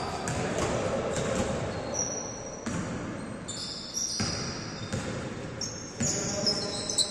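A basketball bouncing on a gym court in several sharp thuds, with sneakers squeaking on the floor in short high chirps from about two seconds in.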